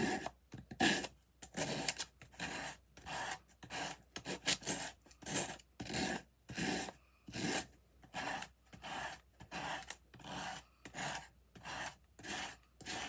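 Sandpaper rubbed in quick back-and-forth strokes, about two a second, over heavy textured craft paper, sanding away the excess paper.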